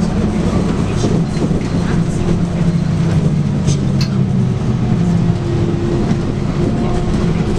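Scania DC9 9.3-litre five-cylinder diesel of a Scania K280UB city bus running under way with a steady hum, its pitch easing up and down slightly. A few light clicks sound around the middle.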